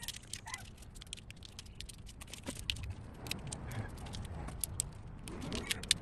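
Wiring loom and its connectors being handled, with many small irregular clicks and rattles.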